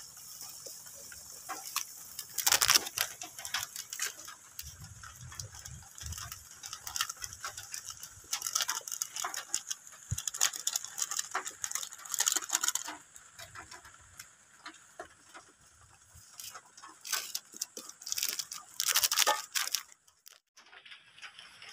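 A bamboo spatula scraping and stirring food in a metal wok, in several short bouts of quick strokes.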